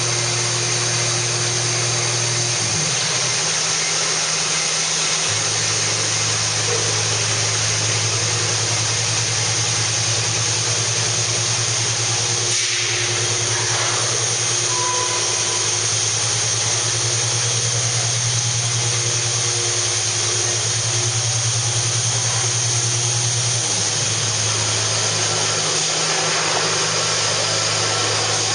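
Large industrial machinery running: a steady loud hum with a hiss over it. The low hum steps down and back up twice, about 3 and 24 seconds in.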